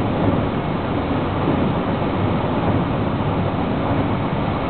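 JR West 223 series electric train running steadily at speed: the even rumble of wheels on rails and running gear, heard inside the front car.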